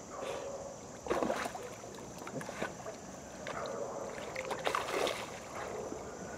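Water splashing and sloshing in irregular bursts around a dog swimming in a pond and going after floating fish food, loudest about a second in and again near the five-second mark.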